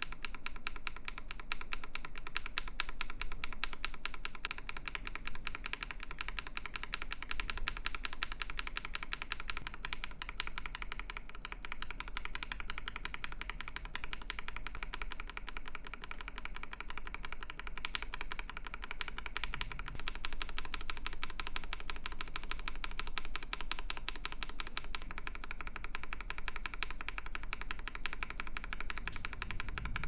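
Rapid, continuous typing on a mechanical keyboard fitted with lubed linear switches. Lubed Akko CS Rose Red switches are heard first, then lubed Banana Split switches partway through.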